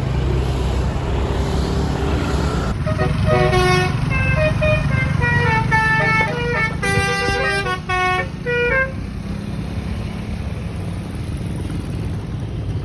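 Angkot's telolet horn playing a tune of short notes that change pitch, starting about three seconds in and stopping about six seconds later. Steady engine and road rumble of the minibus underneath.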